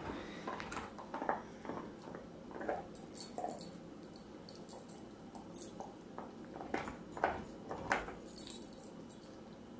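Faint dog sounds at close range: small noises from a chocolate Labrador puppy sniffing and mouthing a hand while it is petted, with a few sharp light clicks near the end.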